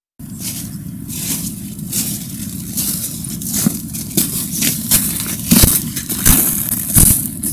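Footsteps in hiking boots crunching through frosty dry leaf litter, coming closer and louder until the walker steps right past near the end, over a steady low rumble.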